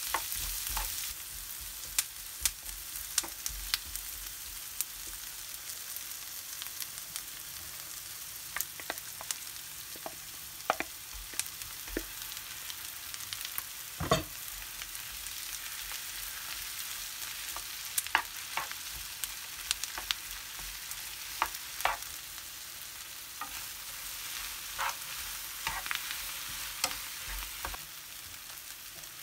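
Onions, garlic and beef sizzling in a nonstick frying pan, with a steady hiss and frequent sharp taps and scrapes of a wooden spatula stirring them. One louder knock comes about halfway through.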